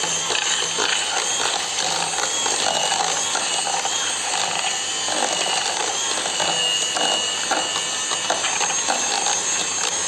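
Electric hand mixer running steadily, its beaters whipping pastry cream with Chantilly powder until it turns light and airy.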